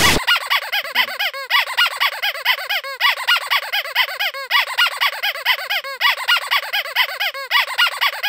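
Rapid, high-pitched squeaking, several short squeaks a second, each rising and falling in pitch.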